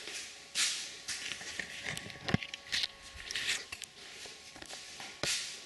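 Scattered light clicks and knocks with short rustling noises from parts being handled, over a faint steady hum.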